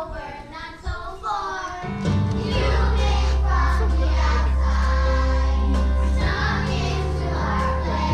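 A group of children singing together with music accompaniment, which comes in louder with a steady bass line about two seconds in.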